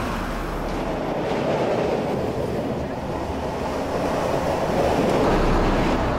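Passenger train in motion heard from inside a carriage: a steady rumble of the running wagons on the rails.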